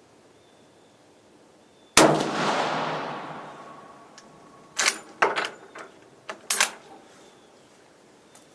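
A single rifle shot from a Steyr M95/30 carbine firing 8x56R surplus military ammunition: a sharp crack about two seconds in, with a long echoing tail. A few seconds later come several quick metallic clacks as the straight-pull bolt is worked back and forward to eject the case and chamber the next round.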